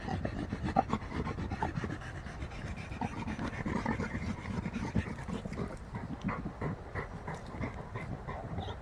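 American Pit Bull Terrier panting hard and fast, winded from a long stretch of digging and hiking.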